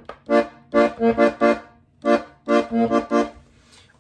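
Diatonic button accordion playing short, detached chords in a rhythmic pattern, two groups of four or five strokes with a brief pause just before the middle.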